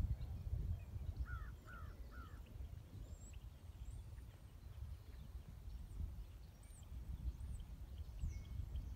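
Small wild birds chirping over a low, uneven rumble: three quick gliding notes about a second in, then scattered thin, high chirps.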